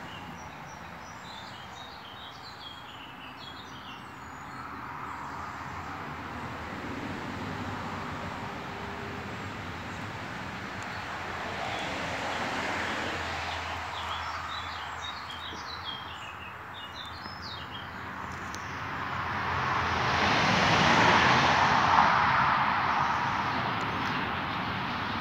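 Small birds chirping in short high clusters, near the start and again past the middle, over a steady rushing background noise that swells loudest near the end.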